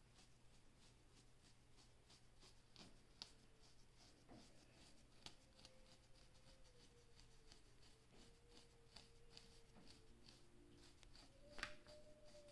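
Faint scratching of a fine-tooth comb raked over short hair and the scalp, scraping off dandruff flakes: many quick soft scrapes, with a louder one near the end.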